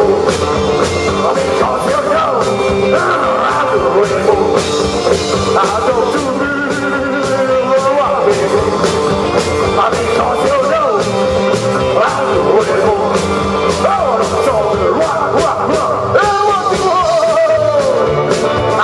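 Live rock-and-roll band playing: two electric guitars, electric bass and a drum kit, loud and steady throughout.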